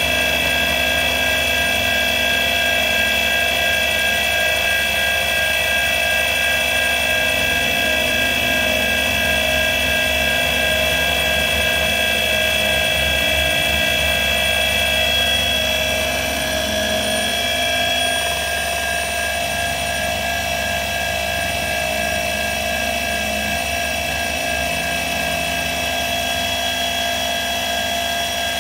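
Milling machine running steadily as its spindle drives a pointed engraving cutter that mills a logo into the face of a metal wood-branding iron. A steady machine whine made of several held tones, dropping slightly in level about sixteen seconds in.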